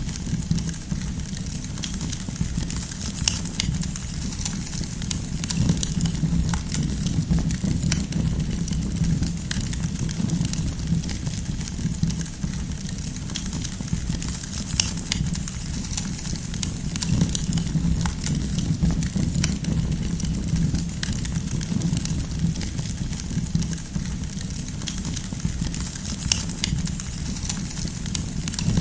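Wood campfire burning: a steady low rumble of flames with many scattered sharp crackles and pops from the firewood.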